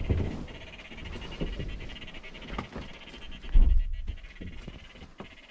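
Handling thumps and rustling as someone climbs out of a sleeping bag and moves out of a shelter, with a heavy thump right at the start and another more than halfway through. A steady high chirring runs underneath throughout.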